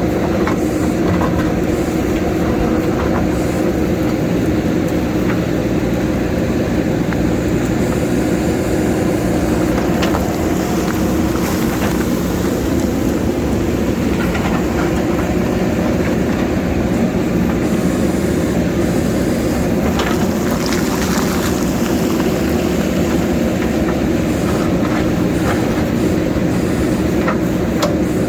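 JCB backhoe's diesel engine running steadily under load, with the clatter and a few sharp scrapes and knocks of the bucket working rock.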